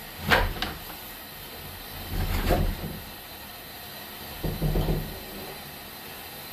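Three short bouts of knocking and rumbling, roughly two seconds apart, as a sewer inspection camera's push cable is fed further into the drain line.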